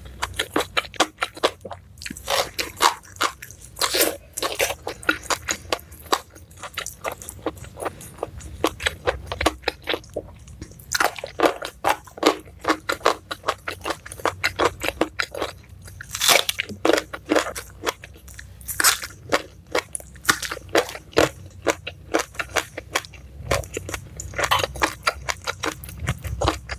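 Close-miked eating: crisp crunching and chewing of raw vegetables with rice, in quick runs of crunches broken by short pauses.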